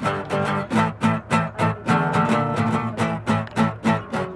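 Two acoustic guitars playing a fast, evenly picked instrumental duet, about four plucked notes a second over sustained low bass notes.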